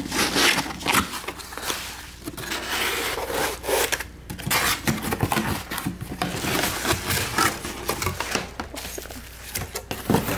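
Cardboard packaging being handled and opened by hand: cardboard scraping and rubbing in irregular strokes, with bubble wrap rustling near the end.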